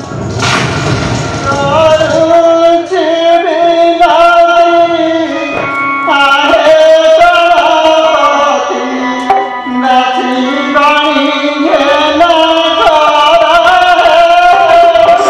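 An Odia folk-theatre song: a singer accompanied by tabla, with a noisy crash in the first two seconds.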